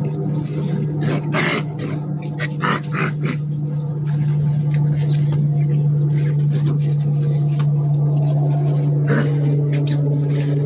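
Maremma sheepdog puppies, five and a half weeks old, making a few short sounds as they play, in a cluster in the first few seconds and once near the end. A steady low hum runs underneath throughout and is the loudest thing heard.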